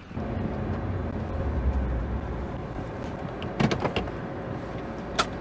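A vehicle running with a low rumble that eases off after a couple of seconds, then a few sharp clicks about three and a half seconds in and again near the end.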